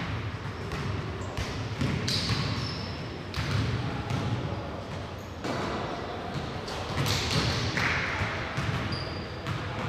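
Basketball game sounds: a ball bouncing on the court in a string of sharp knocks, with a few short high squeaks and voices in the background.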